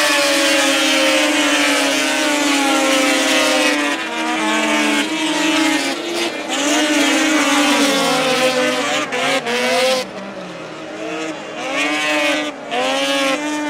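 Racing engines at high revs, with the pitch dipping and climbing again and again as the cars lift off and accelerate. More than one engine is heard at once. Their sound drops back somewhat about ten seconds in.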